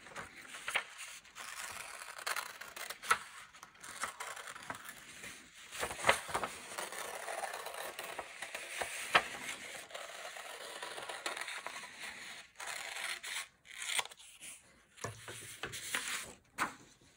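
Scissors slowly cutting through black paper: irregular crisp snips with the sheet rustling and scraping as it is turned.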